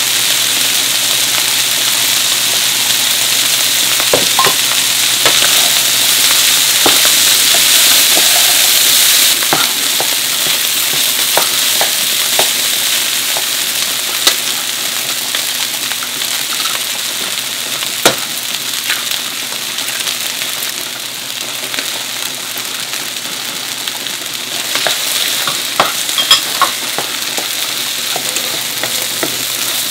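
Yangzhou fried rice sizzling steadily in a nonstick wok while a wooden spatula stirs and turns it, with scattered short scrapes and taps of the spatula against the pan.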